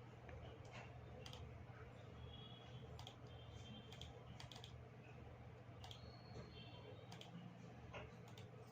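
Faint, irregular clicks of a computer mouse, over a low steady hum.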